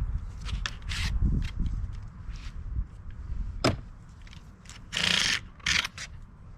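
Hands and tools working on a bicycle during strip-down: scattered clicks and scrapes, a single sharp knock about halfway through, and a short rasping scrape followed by a briefer one near the end.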